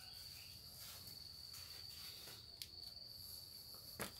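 Faint, steady high-pitched trill of an insect, with a light click partway through and a sharp knock near the end.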